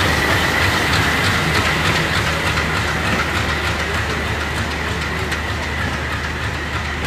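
LHB coaches of an Indian Railways express rolling past along a station platform, with a steady rumble and wheels clicking over the rail joints. A high steady whine fades away over the first couple of seconds.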